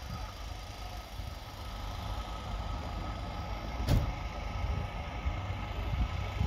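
Citroën CX rally car's four-cylinder engine idling with a low, steady rumble. It sounds a bit like a boat, which the crew put down to one cylinder not firing. A single sharp click about four seconds in.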